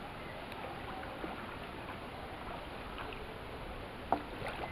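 Faint, steady outdoor background over floodwater with light water lapping. There are a few small clicks and a brief faint knock about four seconds in.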